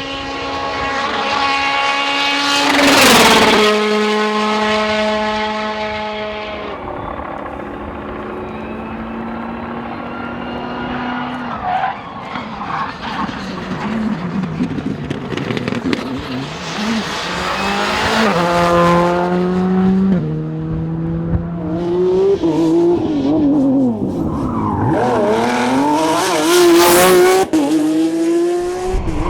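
Rally cars going by at speed one after another, engines revving hard and changing gear, the pitch dropping as each passes. Tyres squeal as the cars slide.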